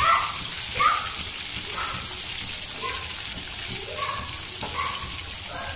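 Hilsa fish steaks frying in hot oil in a wok over a lowered gas flame: a steady sizzle.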